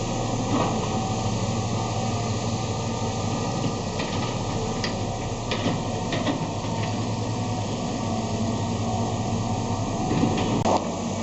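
Steady mechanical drone of a running engine, with a constant low hum over an even rushing noise and a few faint clicks.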